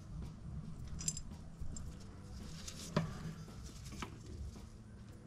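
Faint metallic clinks and ticks as the thermostat water outlet, with its bolts pushed through, is handled and set onto the engine: a ringing clink about a second in and two sharp ticks near three and four seconds.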